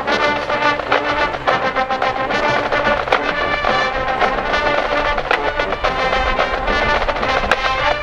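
Marching band playing full out: brass sustaining chords, punctuated by sharp percussion hits.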